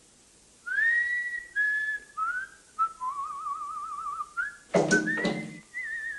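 A man whistling a short tune: held notes and upward slides, with a warbling trill in the middle. A brief louder voiced noise breaks in about five seconds in.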